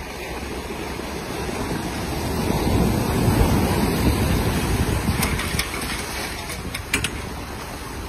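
Surf breaking and washing around the hull of a sailboat grounded in the shallows, one wave surging up and easing off about halfway through. A few sharp clicks near the end.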